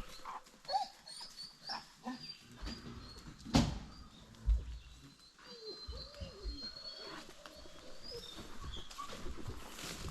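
Hounds making short whines and yelps, with a single sharp knock about three and a half seconds in.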